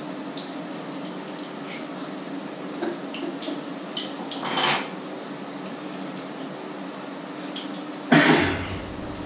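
Pans and cooking utensils clattering at a stove: a few knocks between three and five seconds in, and the loudest clatter about eight seconds in. Under it run a steady hum and the faint crackle of food frying in the pans.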